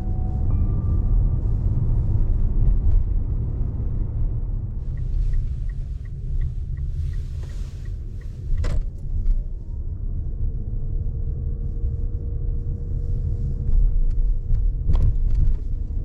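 Car running on the road, a steady low rumble, with a run of light, evenly spaced ticks through the middle and two sharp clicks, one after the ticks and one near the end.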